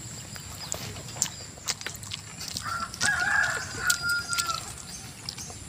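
A rooster crows once, a call of nearly two seconds starting about halfway through and ending on a held note, over scattered sharp clicks.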